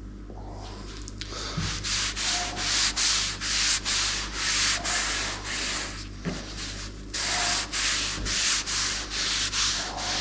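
Hand rubbing strokes over a wooden table top, working in a coat of linseed oil: quick back-and-forth hissing strokes, about two a second, with a short pause about two-thirds of the way through.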